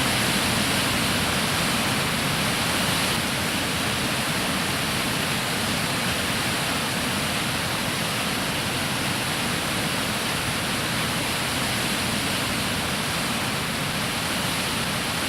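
Water of the Jägala Waterfall rushing steadily, an even wash of noise with no rise or fall.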